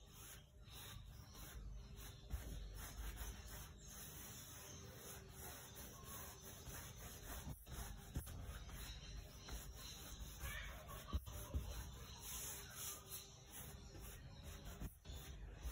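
A paintbrush rubbing across a canvas as paint is blended on, faint, with a few light knocks along the way.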